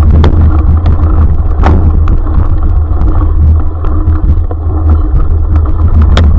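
Loud, steady low rumble of a running vehicle, with scattered sharp clicks throughout.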